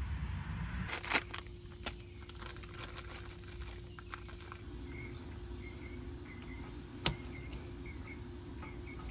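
Crinkling and sharp taps of a box and packet of dry fish-fry mix being opened and poured, loudest about a second in, then soft rustling of hands tossing fish in the dry mix in a steel bowl. Short repeated chirps sound in the background over a steady low hum.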